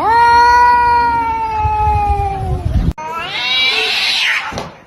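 A cat yowling: one long, drawn-out call that sinks slightly in pitch and cuts off suddenly near three seconds in, then a second, rising call that fades out.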